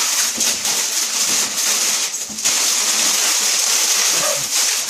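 Loud, continuous rustling and crinkling of cardboard and plastic packaging as a boxed RC truck is handled and unpacked, with a brief lull a little past two seconds in.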